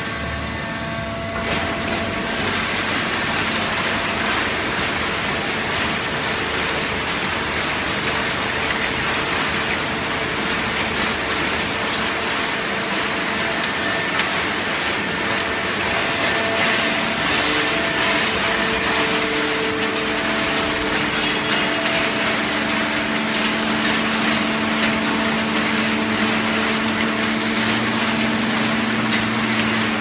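Horizontal hydraulic waste-paper baling press running: steady loud machine noise with a low hum under it, getting louder about a second and a half in.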